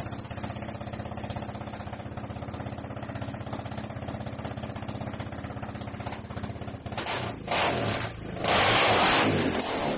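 Small quad bike (ATV) engine idling with a rapid, even putter, then revved hard in two loud surges near the end.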